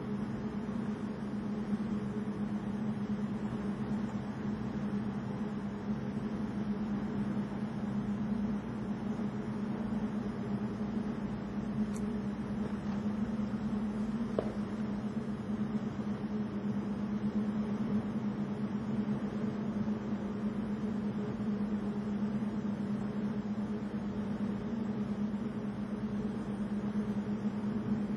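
Steady low machine hum with an even hiss beneath it, unchanging, with two faint ticks about halfway through.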